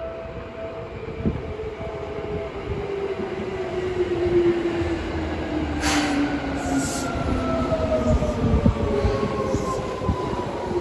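Seibu Railway electric train running in, its motor whine falling steadily in pitch as it slows, with wheel and rail noise growing louder. A level-crossing bell rings on and off for the first couple of seconds, and short hisses break in from about six seconds in.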